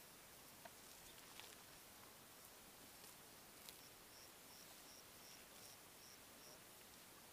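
Near silence with a faint steady hiss and a few faint ticks. About four seconds in, a faint high chirp repeats about eight times, roughly three a second, at one pitch.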